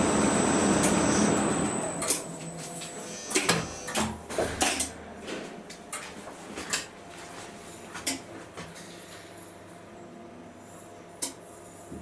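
A 1961 Schindler elevator running, its steady noise dying away about two seconds in as the car stops. A string of clicks and clunks follows, with one more click near the end.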